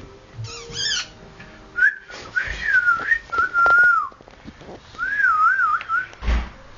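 A person whistling in short, wavering phrases, one long note gliding down in the middle, with a brief higher squeak just after the start and a thump near the end.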